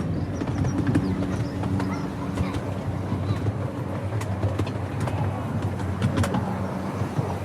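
Ride-on miniature railway train running along its track: a steady low rumble, with scattered sharp clicks from the wheels and rails.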